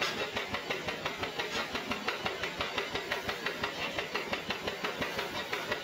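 A light truck's engine idling with a steady rhythmic clatter, about five knocks a second.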